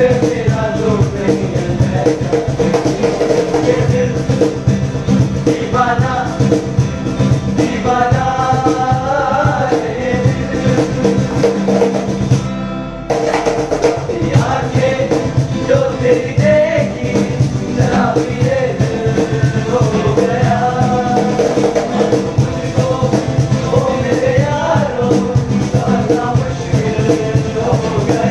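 Several young men singing a Hindi film song together, accompanied by two acoustic guitars and a cajon beaten by hand, keeping a steady rhythm.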